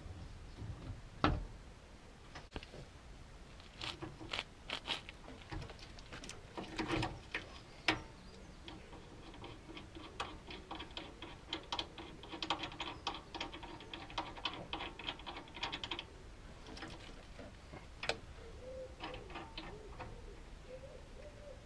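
Hand ratchet clicking in runs of quick, even ticks, with a few sharper metal knocks and clinks, as the forcing screw of a screw-type ball joint splitter is wound in against an MGF/MG TF's front upper ball joint.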